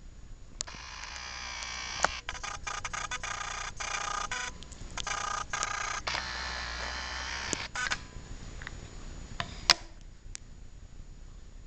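Camera lens motor whirring in a run of short stop-start bursts for about seven seconds as the picture zooms in, with a couple of sharp clicks, one about two seconds in and one near the end.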